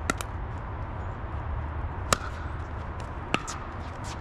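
Pickleball paddles striking a plastic pickleball in a rally: three sharp pocks, about two seconds and then a second and a quarter apart, over a steady low rumble.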